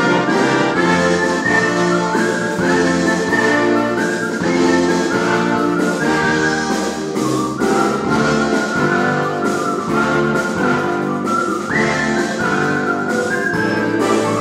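Artistic whistling of a lyrical melody over an orchestral accompaniment with brass. The whistled line swoops up into a higher note about twelve seconds in.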